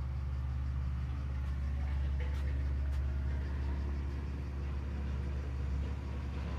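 A steady low mechanical hum, as of an engine or machine running, with a couple of faint clicks about two to three seconds in.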